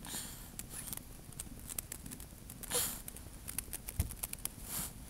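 Irregular small plastic and metal clicks and taps from handling DIY puzzle-cube pieces and a screwdriver while a centre piece is screwed onto the cube's core, with two short breathy sounds.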